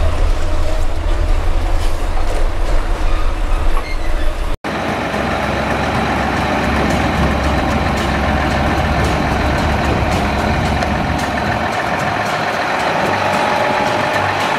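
UD Trucks Quester GWE 370 diesel tractor unit running, heard from inside the cab as a loud, deep rumble while driving. About four and a half seconds in the sound cuts off abruptly and a steadier, thinner drone with held tones follows.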